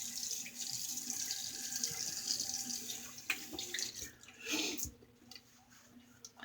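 Water running from a tap into a sink, with small splashes, stopping about three and a half seconds in; a brief splash follows about a second later.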